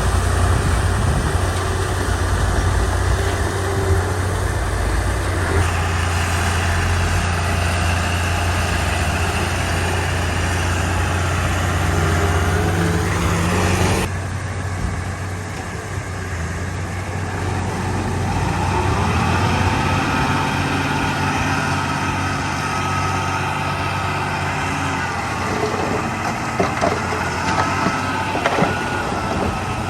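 Komatsu D31 crawler bulldozer's diesel engine running steadily at work. The sound changes abruptly about halfway through. In the second half a high whine rises and falls over the engine, with a few sharp clanks near the end.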